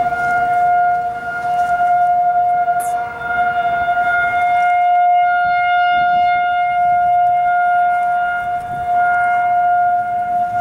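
Federal Signal 2001-series rotating tornado sirens sounding a steady tone during a test. One main tone holds a level pitch and swells and fades in loudness, with fainter, more distant sirens at other pitches underneath.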